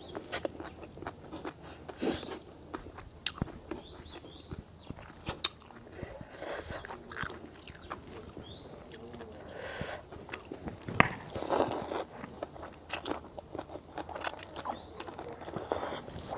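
A person biting and chewing crunchy food close to the microphone, with irregular crunches.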